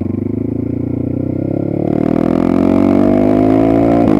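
Geon Dakar GNS300 enduro motorcycle engine accelerating, its pitch climbing steadily for about two seconds, then dropping sharply near the end.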